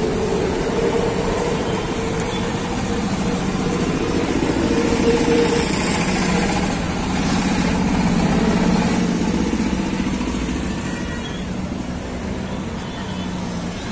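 Street traffic: motor vehicle engines running close by, a continuous din that swells and eases as vehicles move.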